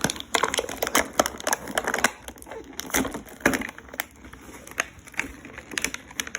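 Toy packaging being handled: irregular crinkling, rustling and small clicks of plastic and paper.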